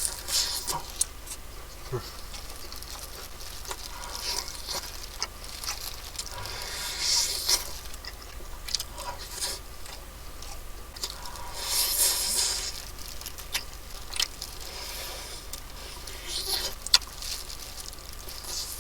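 Close-up eating of fried chicken: crunchy bites of the crisp coating and chewing, with scattered short clicks and scrapes, and two longer crackling crunches about a third and two thirds of the way through.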